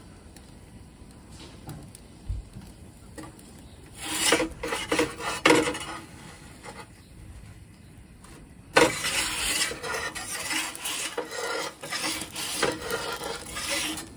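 Metal pizza turning peel scraping and rasping across the Ooni Koda 12's baking stone as the pizza is slid out, turned and pushed back in. There are two bouts of scraping, one about four seconds in and a longer one from about nine seconds on.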